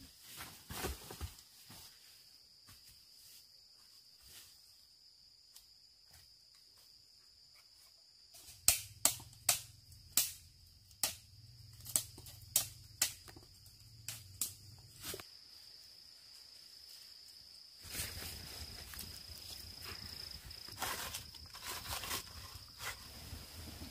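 Crickets chirping steadily, with a quick run of about a dozen sharp knocks in the middle and more knocking and rustling near the end.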